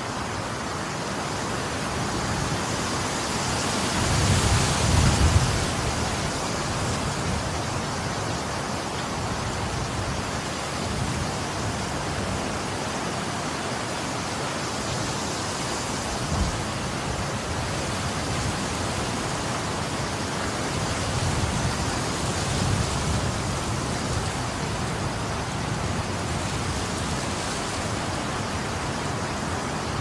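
Wind blowing as a steady rush, swelling into a strong gust about four to six seconds in and rising and easing in gentler gusts after that.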